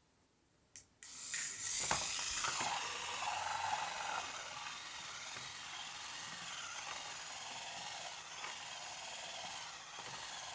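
Little Live Pets toy turtle running in a small water-filled case: a couple of clicks, then about a second in its motor starts a steady whirr as its flippers churn the water. It is cramped and gets stuck.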